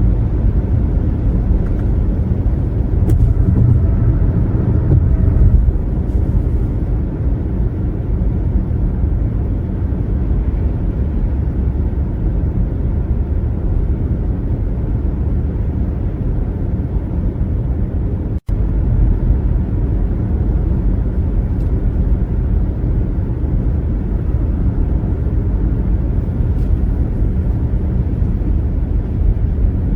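A car driving at highway speed: steady low road and tyre rumble, a little louder a few seconds in, cutting out for an instant about eighteen seconds in.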